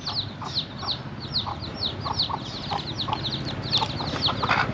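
Chickens calling: a rapid run of short, high, falling peeps, several a second, with occasional lower clucks that grow louder near the end.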